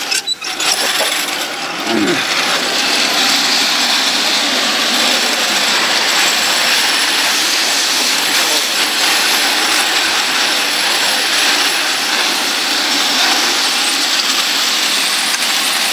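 Roller slide: rows of metal rollers rattling and whirring steadily under riders sliding down the long track.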